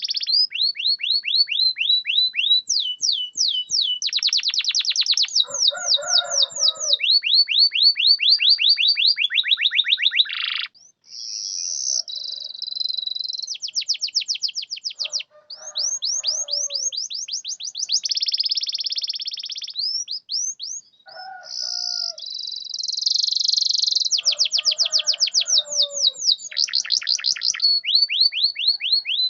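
Domestic canary singing a long song of rapid trills, each a fast run of one repeated high note, switching from one trill type to the next every second or two. A few lower, rougher notes come in now and then, and the song breaks off briefly twice, about a third of the way through and again about two-thirds through.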